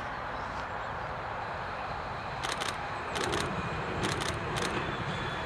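Tram running past on its rails with a steady rumble. From about halfway through, its wheels clack in quick groups of two or three over rail joints, roughly every half second.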